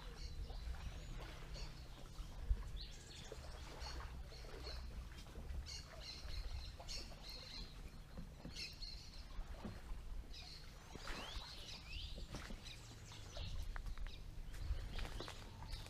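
Wild birds chirping and calling in a tropical clearing: scattered short high chirps, with a few quick rising calls about eleven seconds in, over a low steady rumble.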